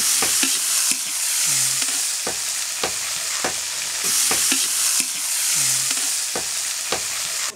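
Julienned carrots sizzling steadily in hot oil in a cast-iron kazan, stirred with a metal skimmer that scrapes and knocks against the pot again and again.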